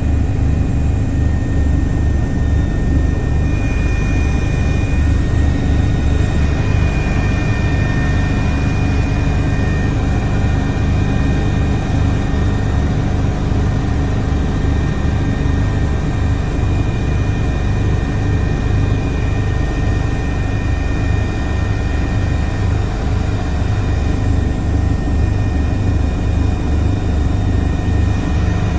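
Airbus H145 D2 helicopter heard from inside the cockpit in flight: a fast, steady low rotor beat with constant high whining tones over it.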